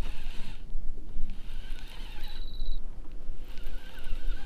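Wind rumbling and buffeting on the microphone on an open boat, rising and falling in gusts. About two seconds in there is a brief high ticking whir.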